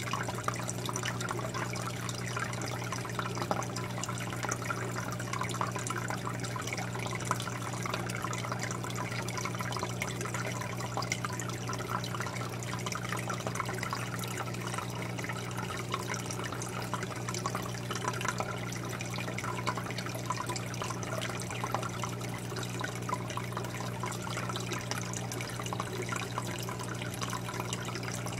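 Aquarium water bubbling and trickling, a steady crackle of small splashes, over a constant low hum.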